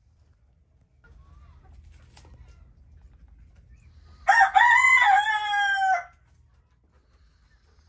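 A rooster crows once, a single drawn-out call of under two seconds that starts about four seconds in, rises, then falls away at the end.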